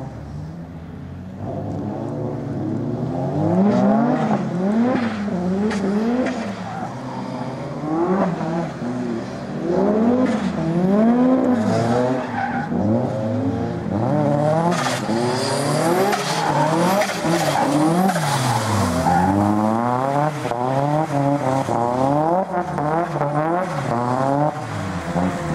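Toyota Corolla drift car's engine revving up and down again and again through a drift, with its tyres skidding on wet asphalt.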